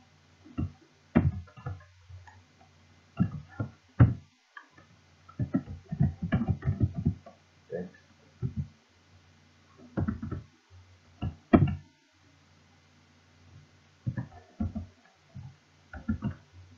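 Computer keyboard keys being typed in short, irregular bursts of clicks, with a low hum under the busier stretches.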